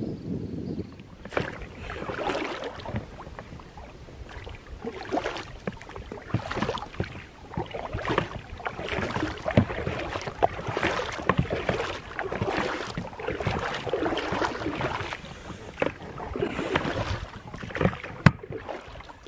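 Oars of a small inflatable dinghy being rowed: a swirl and splash of water with each stroke, coming about every one and a half to two seconds, with occasional sharp knocks from the oars, the loudest near the end.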